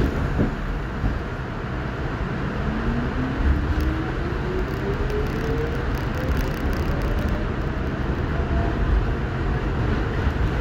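R62A subway train pulling out of a station: its traction motors whine, rising steadily in pitch as the train accelerates, over a steady rumble of the car running on the track.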